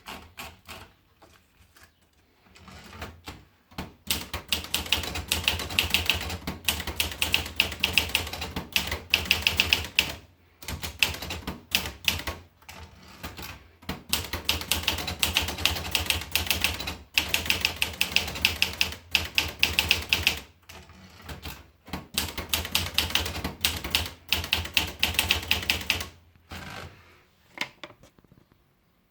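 Olivetti Lettera DL manual portable typewriter being typed on: fast runs of keystrokes in bursts broken by short pauses, starting with a few scattered strokes and stopping a couple of seconds before the end.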